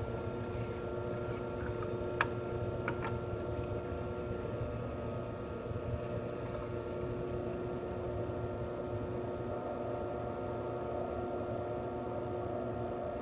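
Drill press motor running steadily with a constant hum while a roll-crimp tool spins against a shotshell hull held in the vise. Two sharp clicks come about two and three seconds in.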